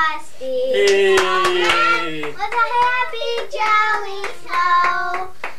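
A young girl singing, with a lower second voice joining for about two seconds near the start and a run of sharp taps in the first half.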